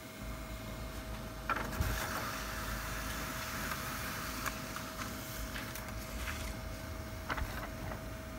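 HP LaserJet Pro MFP M127fn laser printer running a test-print job: its motors and paper feed give a steady whine under mechanical whirring, with a couple of clicks about a second and a half in and another near the end.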